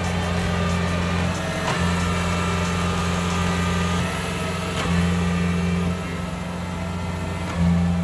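Diesel engine of a crawler rice combine harvester running under load as the machine tracks through deep mud, with a steady low drone that swells and eases every second or two.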